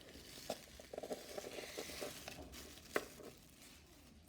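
Plastic sandwich bag being handled, with faint crinkling and rustling and a single sharper tap about three seconds in.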